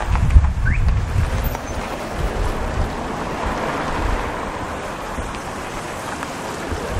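Wind blowing across the microphone: low, uneven buffeting in the first second or so, then a steady rushing noise.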